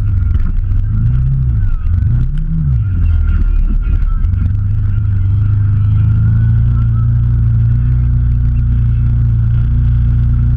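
Off-road vehicle's engine running at low revs as it crawls over rough trail, swelling up and back down twice in the first three seconds, then holding a steady low drone.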